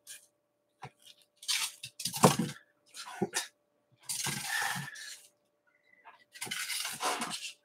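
Shipping packaging rustling and crinkling in five or so separate bursts as a white comic mailer and its wrapping are pulled out of a cardboard box. A faint steady hum runs underneath.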